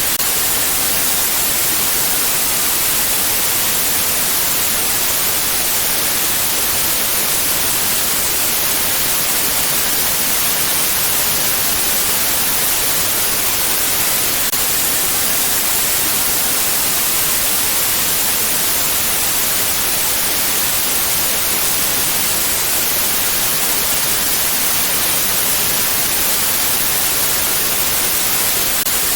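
Steady, unchanging white noise: an even hiss, brightest in the high end, with no breaks or changes.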